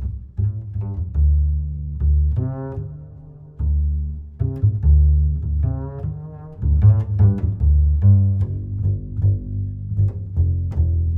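Instrumental music built on deep, low notes with frequent plucked attacks and a few longer held notes that waver in pitch.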